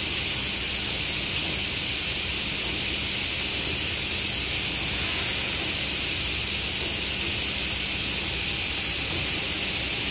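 Palm kernels pouring in a steady stream from a loading chute onto the heap in a truck bed, the gate opened wide: a continuous dense hiss, with a faint steady low hum underneath.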